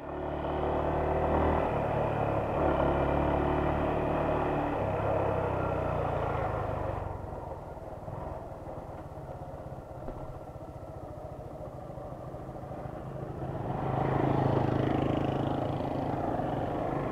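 Motorcycle engine running while riding, heard from the rider's position. Its note shifts in steps over the first several seconds, drops quieter about seven seconds in, and picks up again around fourteen seconds.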